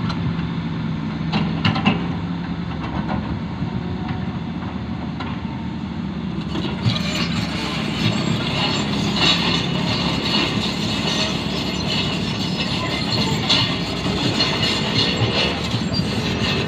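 Hitachi excavator's diesel engine running, with metallic clanking and rattling from the working machine. About seven seconds in the sound turns brighter and busier, with more frequent clanks.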